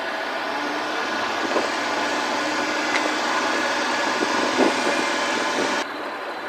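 Kei truck engine running with tyre and road noise as the truck pulls along the street, growing a little louder as it gathers speed, with a few light knocks. Near the end the high hiss drops away abruptly.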